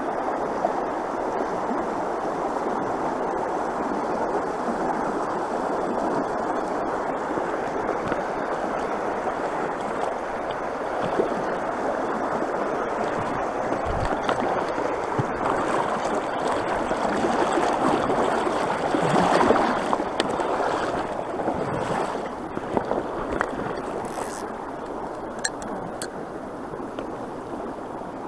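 Small rocky creek running and babbling close to the microphone, a steady rush of water that swells louder about two-thirds of the way through. A few light clicks come near the end.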